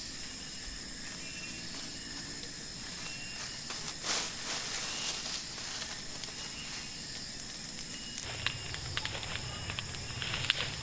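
Steady high-pitched insect buzzing, with a short rustle about four seconds in and a run of light crackles and rustles over the last few seconds.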